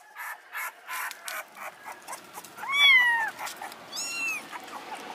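Hungry young kitten mewing for milk: a loud, drawn-out meow that rises and falls about three seconds in, then a shorter, higher mew about a second later. Before these, a quick run of short sounds, about three a second.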